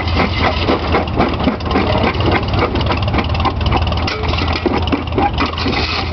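Farmall tractor engine running steadily under belt work, driving a rock crusher through a long flat belt. A steady low hum sits under a busy, continuous clatter.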